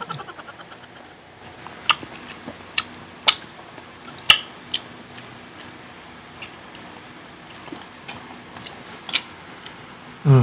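Close-miked eating sounds: irregular sharp crunches and mouth clicks as people bite into and chew pizza and crispy fried chicken. A brief falling voice sound comes right at the end.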